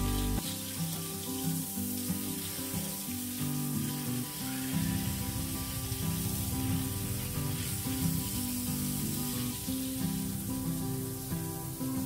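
Water spraying from a garden hose onto a motorcycle, a steady hiss, over background music.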